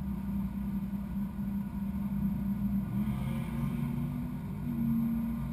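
A vehicle engine running steadily, heard from inside a car's cabin, its pitch rising slightly a few seconds in.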